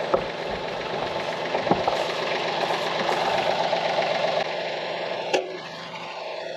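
Compact tractor engine idling steadily, with a few sharp clicks. The loudest comes a little after five seconds in, and the engine sound is quieter after it.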